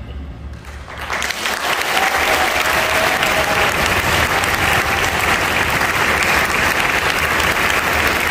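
The orchestra's final chord fades away in the hall, and about a second in the audience breaks into applause that continues steadily.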